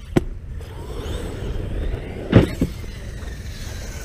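Arrma 6S brushless RC truck running over rough dirt with a faint falling motor whine over low wind rumble, struck by hard knocks: a sharp one at the start and the loudest thump about two and a half seconds in, with a second smaller knock right after it.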